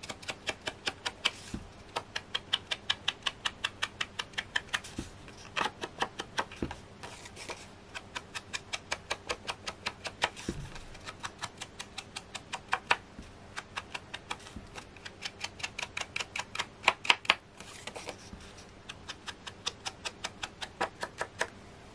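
Rapid crunchy ticking, about five strokes a second in runs with short pauses, as red ink is worked onto the edges of embossed card pieces with quick repeated strokes of the ink tool. A few louder strokes come about three quarters of the way through.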